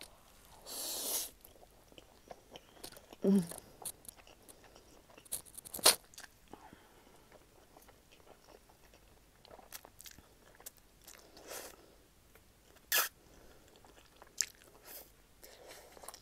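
Instant ramen noodles slurped and chewed close to the microphone. There is a slurp about a second in, then wet chewing with scattered sharp mouth clicks and smacks, the loudest about six seconds in and again near thirteen seconds. A brief voiced hum comes about three seconds in.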